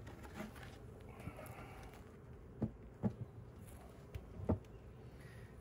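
Honeybees buzzing around a newly installed hive, a steady low hum. Three sharp wooden knocks come in the middle as the hive's cover is set in place.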